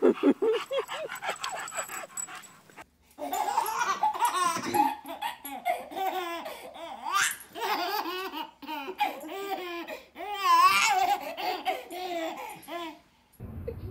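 A dog makes quick, repeated short sounds for the first few seconds. Then a baby laughs, giggling in rhythmic runs of laughter with short breaks.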